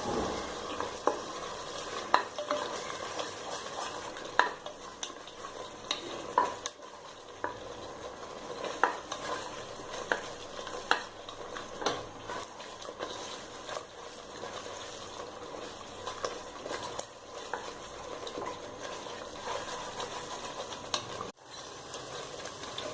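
Ground masala paste frying in oil in a cooking pot, sizzling steadily, while a spoon stirs and scrapes it with frequent clicks and knocks against the pot. It is being stirred constantly to keep the paste from catching on the bottom as it browns. There is a brief break in the sound near the end.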